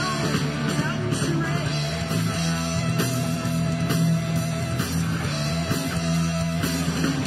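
Live band playing a guitar-led rock song with a steady beat.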